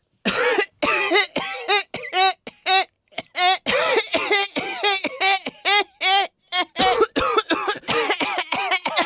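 A person coughing over and over, loud voiced coughs coming about two to three a second with hardly a break.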